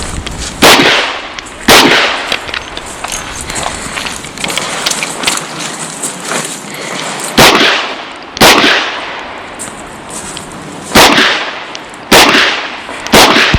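Revolver firing .38 Special rounds, seven sharp shots: two about a second apart, then a pause of about five seconds, then a pair and a run of three, each roughly a second apart.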